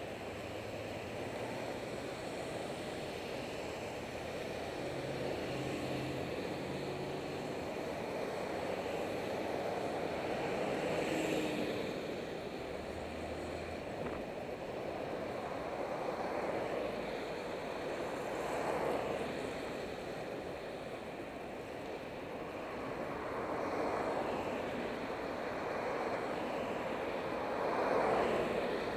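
Passing road traffic and wind rush on a helmet camera while riding a bicycle: a steady rush of tyre and engine noise, with vehicles swelling past several times.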